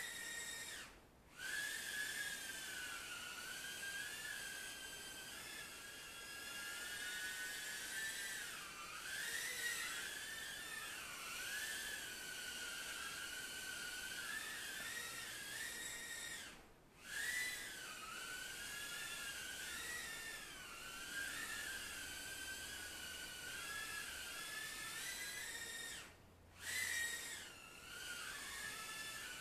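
Furibee F36 micro quadcopter's motors and propellers whining at a high pitch that wavers up and down with the throttle. The whine drops away briefly three times: about a second in, around the middle, and near the end.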